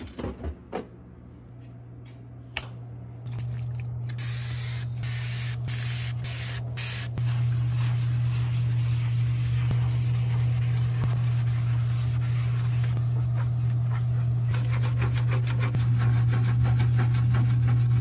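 A spray bottle squirts cleaner several times in quick succession, then a sponge scrubs a soapy glass fridge shelf, the strokes getting quicker near the end. A steady low hum runs underneath.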